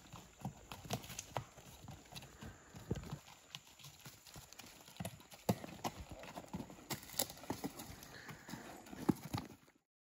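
Hoofbeats of a ridden Tennessee Walking Horse walking over a rocky dirt trail: uneven clops and knocks that stop abruptly near the end.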